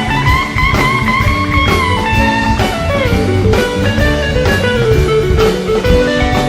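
Live rock band playing an instrumental passage: a lead guitar melody over a drum kit, the guitar line gliding down in pitch about three seconds in.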